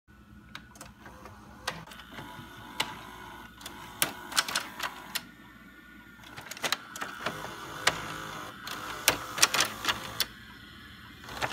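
Videocassette recorder mechanism running: irregular sharp clicks over a steady low hum.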